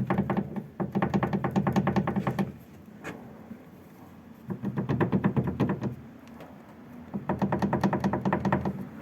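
Renault Logan's handbrake cable knocking in quick rattling runs, three bursts of one to three seconds each: the rear-end knock this cable causes.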